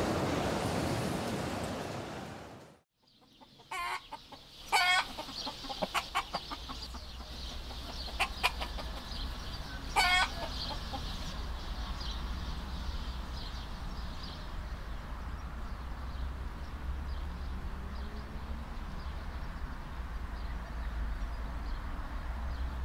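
Farmyard chickens clucking, with a few loud, sharp calls about five and ten seconds in, over a low steady rumble. A preceding sound fades out into a brief silence about three seconds in.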